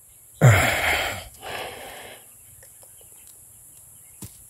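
A man's loud, strained breathy grunt about half a second in, falling in pitch, then a softer heavy breath a second later: effort while pulling hard on a large eel hooked in its burrow.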